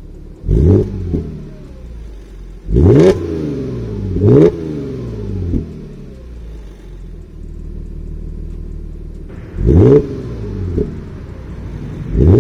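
Warmed-up Audi S4 engine on its stock exhaust, idling and blipped five times to about 3,000 rpm. Each blip rises sharply in pitch and falls back to idle: three in the first few seconds, then two more near the end after a stretch of steady idle.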